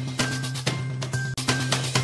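Background music with a steady drum beat, about two strong hits a second with lighter ones between, over a sustained low bass drone.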